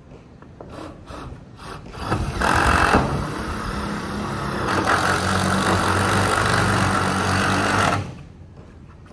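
Power drill driving a roofing screw into metal roof sheeting. The motor starts about two seconds in, runs steadily for about six seconds and stops abruptly.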